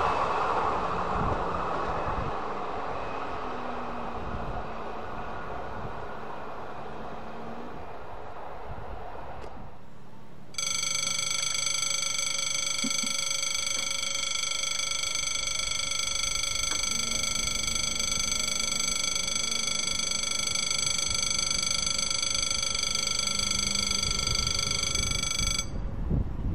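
A passing train's running noise dies away over the first ten seconds. Then an electronic level-crossing warning bell rings steadily for about fifteen seconds and cuts off suddenly near the end.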